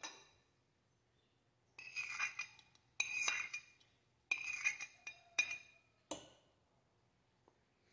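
A metal spoon scraping and clinking against a porcelain plate as chopped pickled chili is pushed off it into a glass jar. There are several short bursts of scraping and clinking with a ringing tone.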